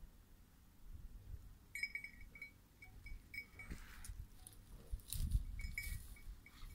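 Electronic beeper collar on a pointer giving a series of short, steady high beeps from about two seconds in, the signal such collars give when the dog is on point. The beeps pause midway and return near the end. Brush rustles and there are low thumps in between, loudest past the middle.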